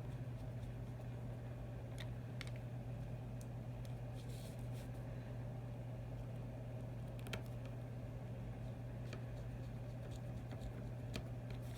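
Faint scattered clicks and light taps of small tools and phone parts being handled, over a steady low hum.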